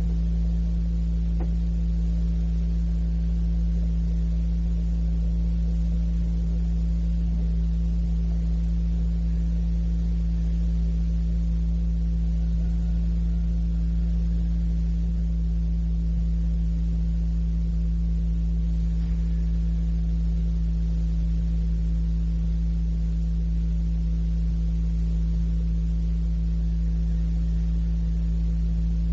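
Steady electrical hum on an old cassette recording: a constant low drone with several fainter steady tones above it, unchanging throughout.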